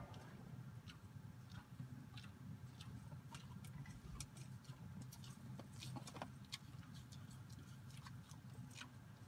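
Calf eating barley from a metal creep feeder trough: faint, irregular crunching and sharp clicks of grain and muzzle against the metal, over a low steady rumble.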